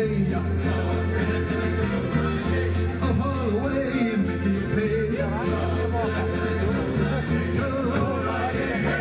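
Background music: a song with singing over guitar, bass and a steady beat.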